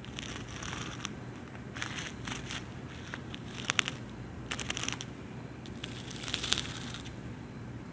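Cockroaches gnawing on food: irregular dry crackles and clicks that come in short clusters, the loudest a little under four seconds in and again past six seconds.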